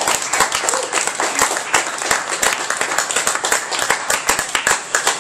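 Audience applauding: a dense, steady patter of many hand claps.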